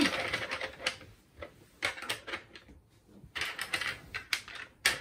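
Small plastic game pieces clicking and clacking as they are handled and set onto a plastic puzzle board, in irregular clusters of quick taps.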